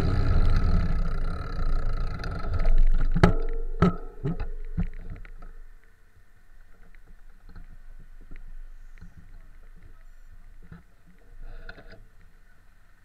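Wind and road noise rushing on a bicycle-mounted camera while riding in traffic, then about four sharp knocks as the bike comes to a stop. Faint street traffic follows.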